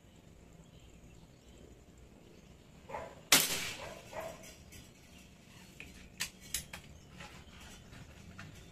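A single sharp, loud shot from a pistol-style rifle about a third of the way in, with a dog barking just before and just after it. A few seconds later comes a quick run of sharp clicks.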